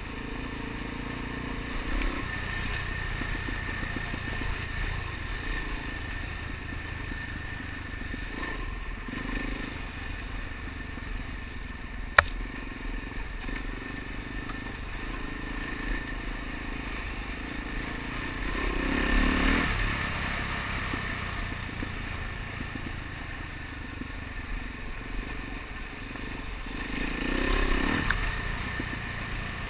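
A Suzuki DR-Z dual-sport motorcycle's single-cylinder four-stroke engine running steadily while riding a gravel road, with tyre and chassis clatter. There is a single sharp knock about twelve seconds in, and the engine grows louder twice, near two-thirds of the way through and again near the end.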